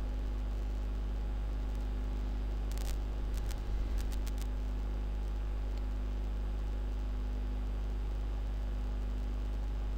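Steady low electrical hum with a faint noise floor, and a few faint short clicks about three to four and a half seconds in.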